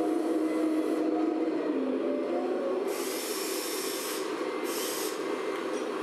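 Electric hydraulic pump whine from RC scale construction models, a steady whine that drifts in pitch as the Volvo excavator lifts its loaded bucket. Two short bursts of hissing come about halfway through.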